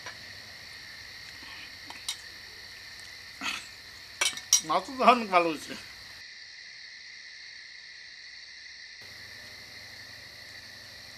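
Steady high trill of night insects such as crickets. There is a light clink about two seconds in, and a short wordless vocal outburst from a person, rising and falling in pitch, between about three and a half and six seconds.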